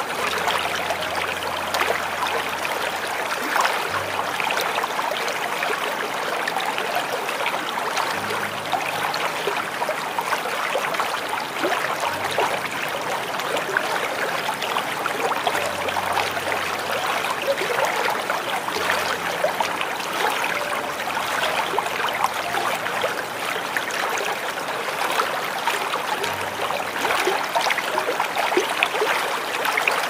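Small waterfall running steadily: a continuous splashing, trickling rush of falling water.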